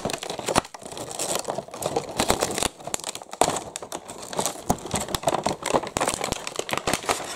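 Crinkling and rustling of a cardboard toy box with a clear plastic window as it is handled and its taped top is pulled open, with many small clicks and crackles.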